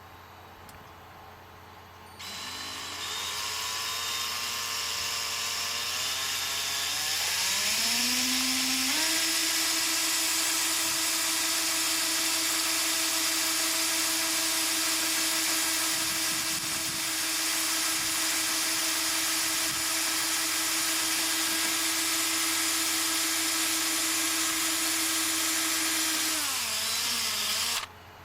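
Electric drill drilling a hole for a sensor mounting screw. The motor starts about two seconds in, its whine climbing in pitch over several seconds as the trigger is squeezed. It holds steady at full speed, then winds down and stops just before the end.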